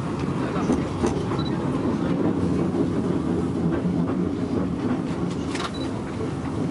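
Fløibanen funicular car running downhill on its rails, heard from inside the car: a steady low rumble with a few faint clicks.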